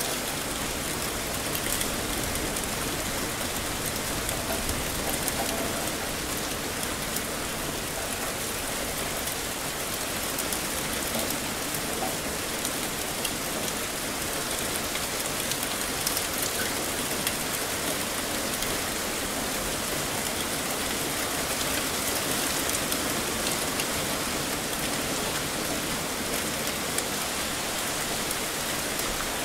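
Heavy rain falling steadily: a dense, even hiss with many small drop impacts.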